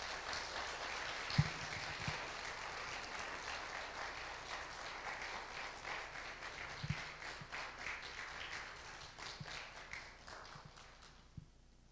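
Congregation applauding steadily, dying away about eleven seconds in, with a few low thumps along the way.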